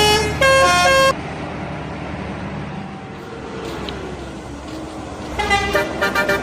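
Indonesian bus telolet horn playing a quick tune of stepped musical notes, cutting off abruptly about a second in. Quieter road and engine noise follows, and the telolet horn starts up again near the end with a fast run of notes.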